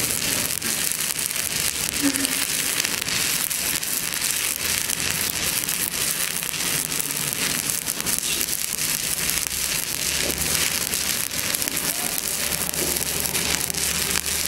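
Stick-welding arc burning on a steel pipe joint: a steady, dense crackling sizzle from the flux-coated electrode, unbroken throughout.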